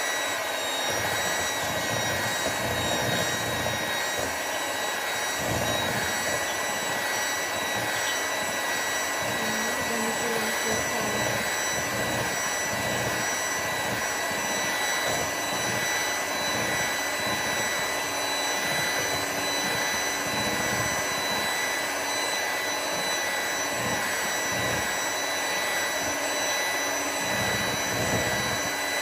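Electric hand mixer running at one steady speed, its beaters whipping double cream in a glass bowl: a steady high-pitched motor whine over a whirring hiss.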